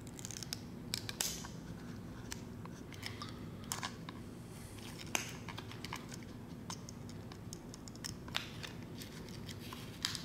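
Amazon Echo Spot being taken apart by hand: its plastic parts and ribbon-cable connectors give scattered small clicks and short scrapes, with a steady low hum underneath.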